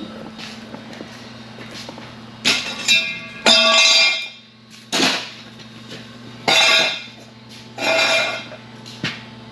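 Milling machine running with a steady motor hum, broken by about six short, loud, ringing bursts of noise in the middle of the stretch as the work is cut and handled.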